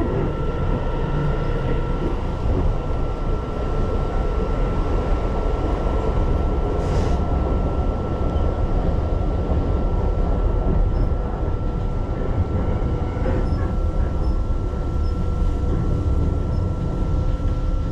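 Keihan Line commuter train running between stations, heard from inside the car: a steady low rumble with a constant high hum over it and a brief hiss about seven seconds in.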